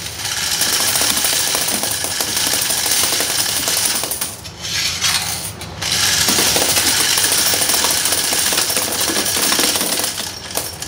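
Quarters being fed through a coin-counting machine: a continuous metallic clatter of coins. It eases off briefly about four seconds in, then runs again.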